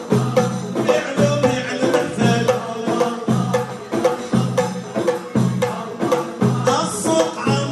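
Moroccan Issawa Sufi ensemble playing live: frame drums and hand drums beating a fast, steady rhythm under a repeated melodic line.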